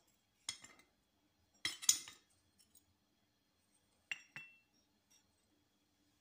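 Small baked clay pots and lamps clinking against each other as they are handled and set down. There are a few light clinks about half a second in, a louder cluster around two seconds, and one clink just after four seconds that rings briefly.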